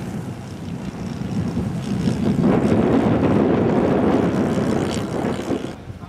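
Wind buffeting the microphone, a rough rushing noise that swells loudly about two seconds in and dies away near the end.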